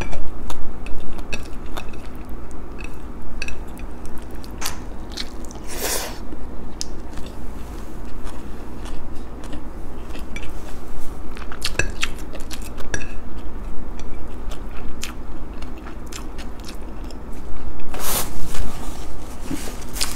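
A person chewing and crunching food close to the microphone, with many small wet clicks from mouth and fingers as she eats with her hands. Two louder short rushes of noise come about six seconds in and near the end.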